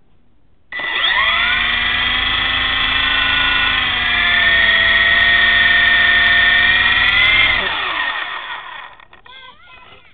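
Electric motor and rotor blades of a 40 cm 9961 RC helicopter, heard close through its onboard camera, spinning up abruptly to a steady high whine, holding for about seven seconds with small dips and rises in pitch, then falling in pitch as it winds down. One rotor blade is already damaged.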